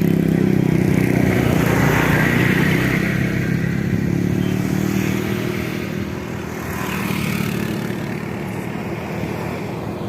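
An engine running steadily, with a hiss over it; it eases off slightly after about six seconds.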